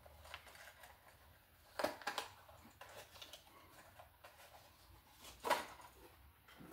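A few soft clicks and rustles, in two short clusters about two seconds in and about five and a half seconds in, from a new double wall switch being handled and taken out of its packaging.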